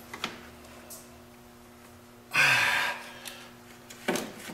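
A man's loud, breathy exhale of effort, under a second long, about halfway through, while he strains to seat a heavy turbocharger by hand. A few light clicks and a knock of metal parts being handled sound around it, over a steady low hum.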